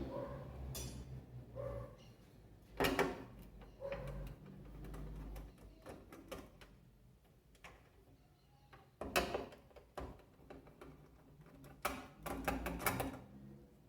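Scattered clanks, knocks and clicks of tools on metal parts as a washing machine's transmission is being unbolted from underneath. The loudest knocks come about three seconds in and about nine seconds in, with a quick run of clicks near the end.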